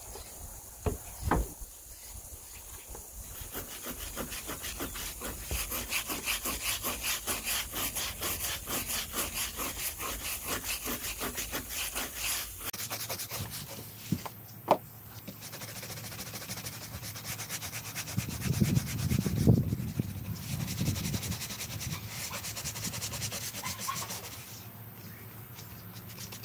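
A stiff scrub brush scrubbing a wet rubber tire sidewall in quick, even back-and-forth strokes, three to four a second, with a couple of trigger-sprayer squirts at the start. About two-thirds of the way through comes a louder, deeper stretch of scrubbing.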